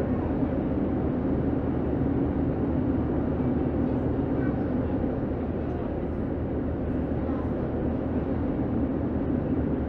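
Steady running noise of a diesel passenger train heard from inside the carriage: an even hum from the engine and wheels on the rails, with a steady low drone.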